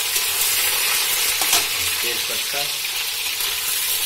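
Cubes of paneer sizzling steadily as they fry in hot oil in a kadhai, stirred with a spoon; the paneer is just turning golden.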